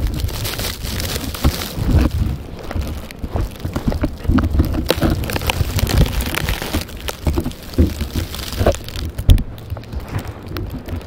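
Blizzard wind gusting over the microphone, with an uneven low rumble, a steady hiss and many small ticks from driven snow.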